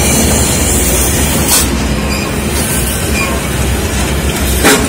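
Loaded Hino dump trucks passing close by on a steep downhill, their diesel engines running with a heavy low rumble and rattle. Two sharp clacks cut through, about a second and a half in and a louder one near the end.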